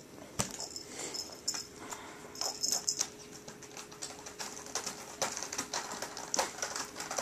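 Cats playing with a plastic circuit-track ball toy and scratcher: irregular light clicks and knocks, with short bursts of high rattling in the first few seconds.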